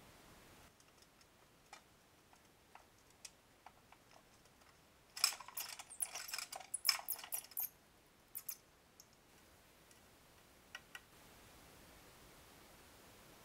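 Faint scattered clicks, then a couple of seconds of rapid clicking and scrabbling about five seconds in, from mice moving inside an antique Delusion multi-catch live mousetrap.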